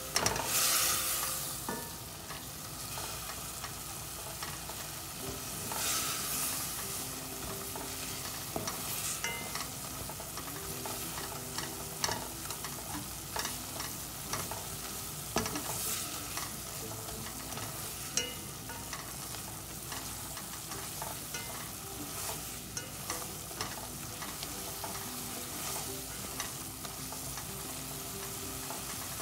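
Onion, garlic, chillies and ground spices sizzling in oil in an aluminium pot while a spatula stirs and scrapes them, the spices being fried down. The sizzle flares loudly about half a second in and again around six seconds, with scattered clicks of the spatula against the pot.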